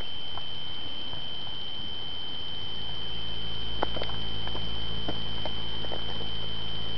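A steady high-pitched tone that does not waver, with a low rumble swelling a few seconds in and a few faint clicks near the end.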